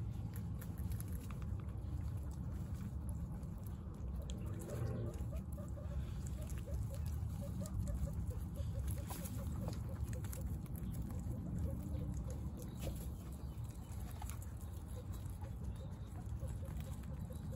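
Guinea pigs chewing carrot and tomato, with many small crunching clicks, and a short squeak about five seconds in followed by a run of soft repeated short notes.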